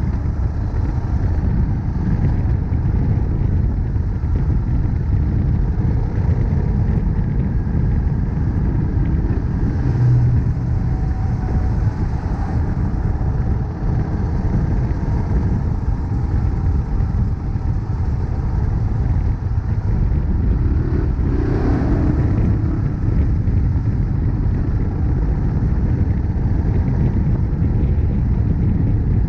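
Honda CRF1100L Africa Twin's parallel-twin engine running at a steady, easy riding pace, under a dense low rumble of wind and road noise on the bike-mounted action camera's microphone. A brief swell of noise comes about two-thirds of the way through.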